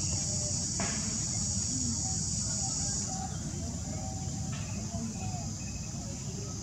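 Steady, high-pitched drone of insects, with a low rumbling noise underneath and two faint clicks.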